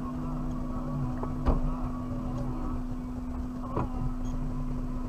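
Suzuki Jimny running off-road, heard from inside the cabin: a steady engine drone over a low rumble, with two short knocks from the vehicle about a second and a half in and again near four seconds.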